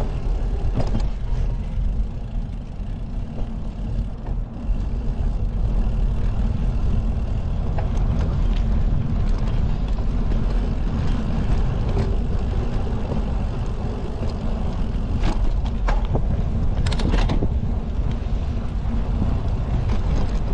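Steady low rumble of wind buffeting the microphone and tyres rolling on the path as a bicycle rides along, with a few brief clicks and rattles near the end.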